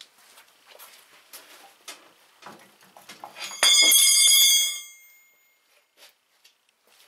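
A steel bar clanging onto a concrete floor, ringing with a bright metallic tone for about a second, after a run of light knocks and clicks from handling rusty tractor parts.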